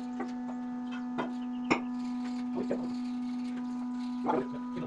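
A steady hum at one pitch, with a few sharp clicks and knocks scattered through it, the sharpest a little under two seconds in.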